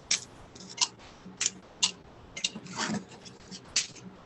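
Crisp chips being snapped into smaller pieces by hand: a series of short, sharp, irregular crackles.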